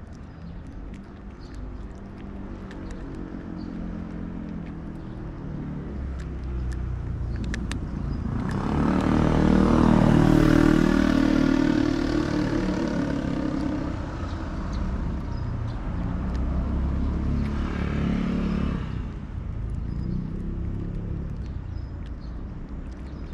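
Two motor vehicles pass by: the first swells up and fades over about six seconds near the middle, the second passes more briefly a few seconds later. Underneath, faint clicks of a cat crunching dry kibble.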